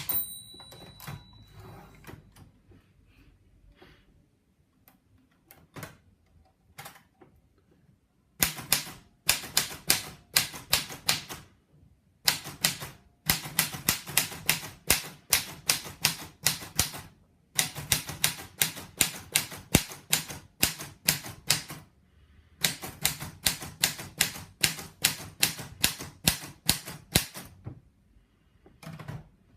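Erika manual portable typewriter being typed on: a strike with a short ring at the start, a few scattered quieter clicks, then long runs of rapid key strikes, several a second, broken by short pauses.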